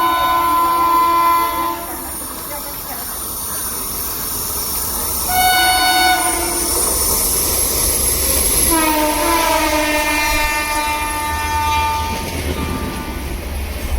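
Indian Railways train horn sounding several blasts over the rumble and clatter of a train on the track. One blast cuts off about two seconds in, a short one comes around the middle, and a longer one starts near two-thirds of the way through, dropping slightly in pitch.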